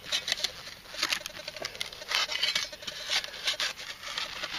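Steel digging spade chopping and scraping into rock-hard, dry soil, breaking up clods in a small hole: a series of irregular gritty crunches and scrapes.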